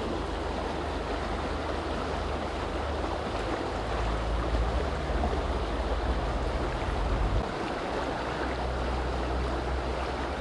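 Steady rush of a small mountain river's flowing water, with a low rumble swelling about four seconds in and dropping away about three seconds later.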